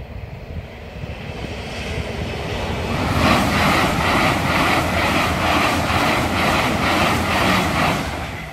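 Passenger train passing a level crossing at speed. A rising rush as it approaches gives way to a loud run of rhythmic wheel beats, nearly three a second, which cuts off sharply as the last carriage clears.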